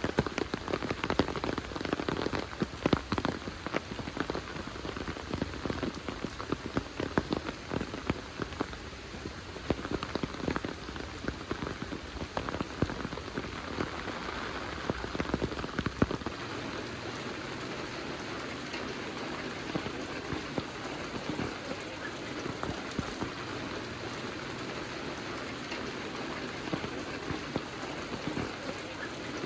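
Heavy rain falling, a steady hiss with many close drops striking sharply. The close drop hits are thicker and louder in the first half, and the rain evens out into a steadier wash after about halfway.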